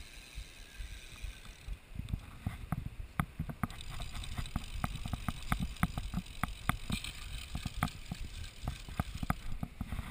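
Wind buffeting the camera's microphone in uneven low rumbles, with irregular sharp clicks and knocks several times a second.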